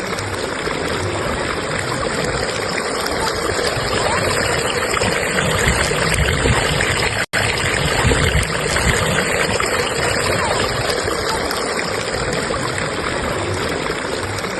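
Strong stream current flowing steadily, a continuous rush of water. The sound cuts out for an instant a little past halfway, then resumes unchanged.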